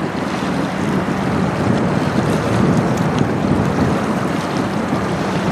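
Steady wind noise on the microphone, with lake waves washing against the rocky shore.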